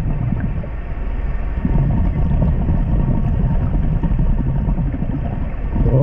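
Steady low underwater rumble and churning water noise picked up by a submerged camera.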